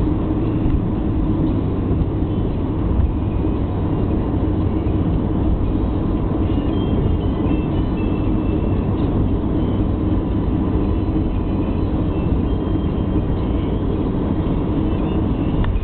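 Steady road and engine noise inside a car cabin at motorway speed: a dense, even low rumble of tyres and engine.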